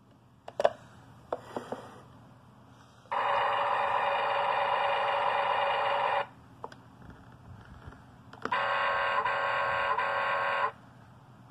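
A few light clicks and knocks, then two electronic sound clips from a 2004 Tonka Side Loader Recycle Truck toy's built-in speaker: a loud, steady one lasting about three seconds and, after a pause, a second lasting about two seconds.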